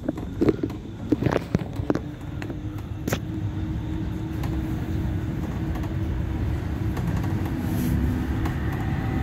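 Bombardier M5000 tram pulling away from a stop, heard from inside the car. A few knocks come in the first two seconds, then a steady rumble of the running gear grows slowly louder as the tram gathers speed, with a steady tone over it.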